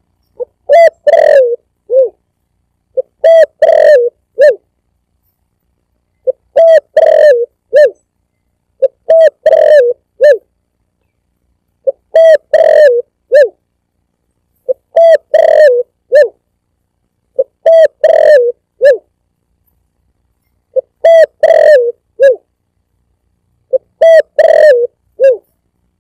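Spotted dove (tekukur) cooing as a looped lure call: the same phrase of four or five coos repeats about every three seconds, nine times, with dead silence between phrases. It is loud.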